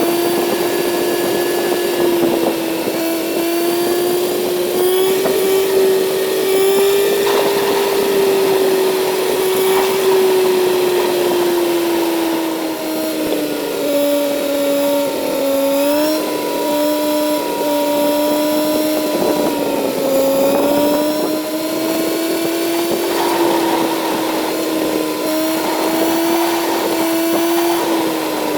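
Kawasaki Z900's inline-four engine pulling steadily at cruising speed, its pitch drifting gently up and down with the throttle and dipping near the end, over some wind and road noise.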